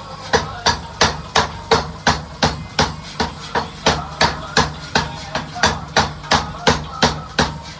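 Mechanical power hammer striking a 50 mm iron rod in a steady run of sharp, ringing blows, about three a second, over the steady hum of the machine's motor. The blows pause briefly at the start and again at the very end.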